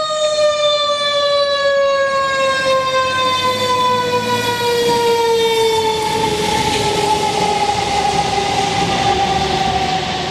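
Fire engine's mechanical siren winding down in one long, slowly falling wail. About six seconds in, the truck's engine and tyre noise swells under it as it passes.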